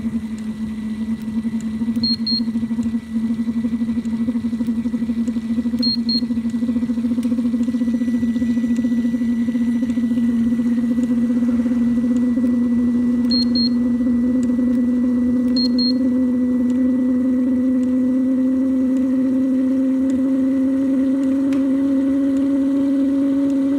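Webasto Thermo Top C diesel parking heater running as it warms up: a steady, loud hum from its blower and burner, its pitch rising slowly. Four short double beeps from an infrared thermometer taking readings sound over it.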